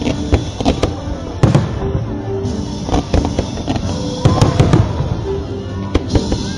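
Aerial fireworks bursting one after another, a rapid string of sharp bangs and crackles, with music playing underneath.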